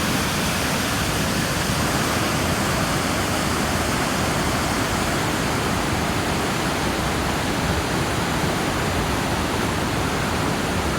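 Vernal Fall's steady rushing roar of falling water.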